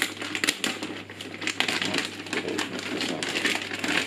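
Clear plastic bag crinkling and rustling in irregular crackles as hands pull it up and off a boxed device.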